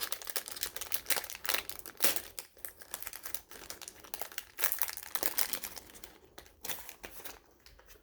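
Plastic-and-paper wrappers of sealed baseball card packs being torn open and crinkled by hand. The crackling is irregular and continuous, then thins out near the end.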